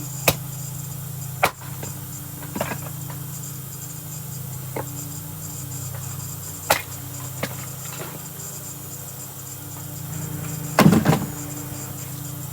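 Axe chopping and splitting kindling: sharp single strikes a second or two apart, then a quick cluster of several hits near the end, the loudest of all. The axe is a 3-pound True Temper Flint Edge Kelly Works Connecticut-pattern head on a hickory handle. A steady low hum runs underneath.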